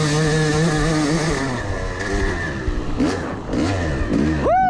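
Yamaha YZ250X's single-cylinder two-stroke dirt bike engine pulling at steady high revs, then, from about two seconds in, revving up and down in a series of short blips as the throttle is rolled on and off, the last blip the loudest.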